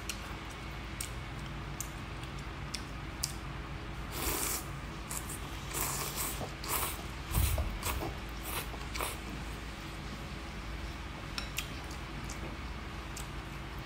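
Rice noodles in broth being slurped, several noisy sucking slurps clustered a few seconds in, with scattered light clicks of chopsticks against a glass bowl.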